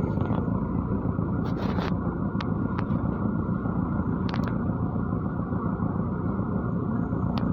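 MAZ-103 city bus running along the road, with steady engine and road noise heard from inside the cabin and a few faint clicks and rattles.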